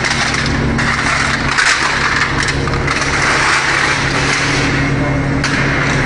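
Hydraulic aluminium can baling press running: a steady low pump-motor hum, with cans rattling and crunching as they are compacted.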